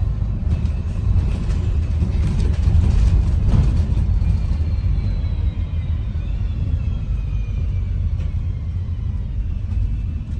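Onboard sound of an ADL Enviro 400 MMC double-decker bus on the move: a steady low engine and road rumble with rattles in the first few seconds. From about four seconds in, a high whine falls slowly in pitch.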